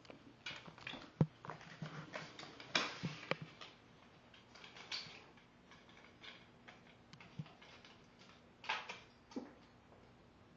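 A kitten batting a ring of cardboard tube across a tile floor: irregular light knocks, clicks and short scuffs as the ring skitters and the kitten scrambles after it.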